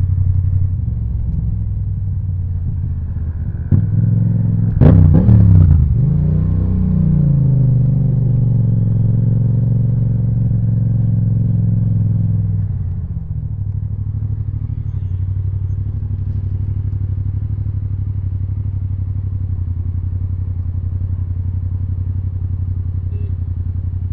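2018 Yamaha MT-07's 689 cc parallel-twin engine through an Akrapovic titanium exhaust, running steadily, then opened up sharply about five seconds in. The higher engine note holds for several seconds and drops back to a low steady rumble near the thirteen-second mark.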